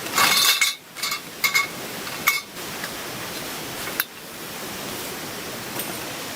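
A steady rushing noise with several short clinks and knocks in the first four seconds, the last a sharp click about four seconds in.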